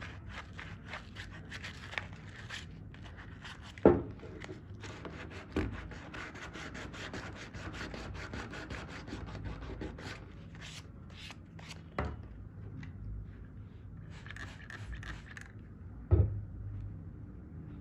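Hand rubbing or scraping on a pair of rusty steel pliers during cleanup: quick repeated scratchy strokes, several a second, with four louder knocks as the tool is set down or shifted.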